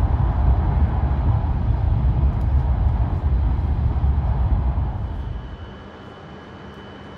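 Cabin noise of a Hayabusa Shinkansen bullet train at speed: a steady, loud low rumble of running gear and air. About five seconds in it cuts to a much quieter hum with a faint steady tone.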